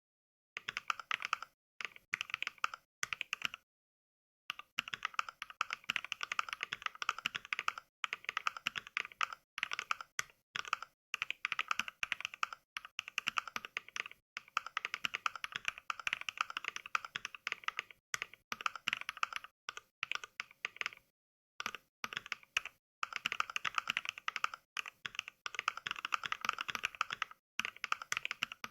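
Fast typing sounds from the Mechvibes NK Cream sound pack, sampled mechanical-keyboard clicks of NovelKeys Cream switches triggered with each keystroke. They come in quick runs with short pauses, and two of the pauses cut to dead silence.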